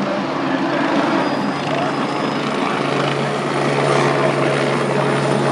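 Helicopter flying nearby, a dense steady rotor and engine noise. A low steady hum joins it about halfway through and it grows slightly louder.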